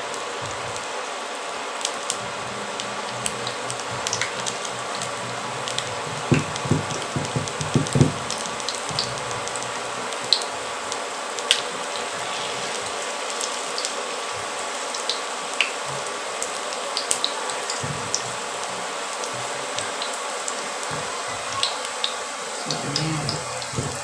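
Okoy fritter batter frying in hot oil in a nonstick pan: a steady sizzle with scattered small pops and crackles. A few low knocks come about six to eight seconds in.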